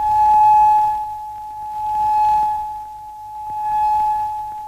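A finger run round the rim of a drinking glass, making it sing one steady high note that swells and fades about every second and a half to two seconds.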